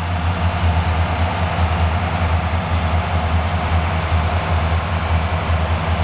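Five John Deere 55-series tractors' six-cylinder diesel engines running together under load while pulling ploughs. Their slightly different exhaust notes blend into one steady, deep drone.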